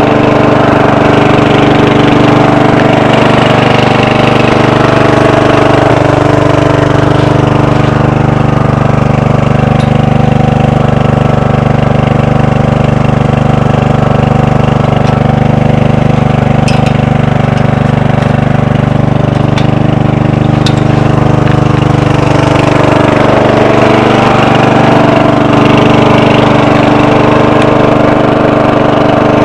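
Bolens 12 hp lawn tractor engine running at a steady speed with the tractor standing still. A few faint clicks sound over it in the middle.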